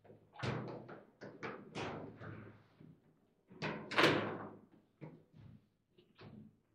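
Table football in play: a quick, irregular run of sharp knocks and clacks as the plastic figures strike the ball and the ball and rods bang against the table. The loudest hit comes about four seconds in.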